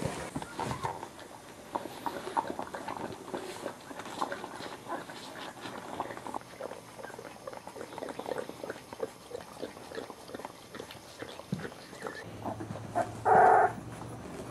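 Boxer puppies and their mother moving about and making small, irregular dog noises, with one short, loud cry near the end.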